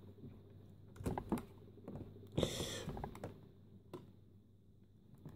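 Faint knocks, taps and a brief scrape as an iBook G3 laptop's plastic case is handled and turned around on a desk; the loudest is a short scraping rustle about two and a half seconds in.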